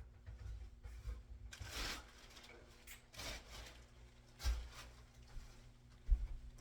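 Paintbrush swishing against a wall in a few separate strokes while trimming out, with a couple of soft knocks, the louder one near the end.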